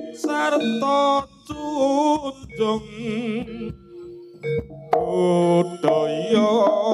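Javanese jaranan music from a live ensemble: a lead melody wavering in pitch over steady held notes, growing louder about five seconds in.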